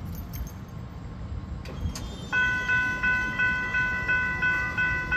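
Railroad grade-crossing bell starts ringing about two seconds in, about three strikes a second, over a low rumble.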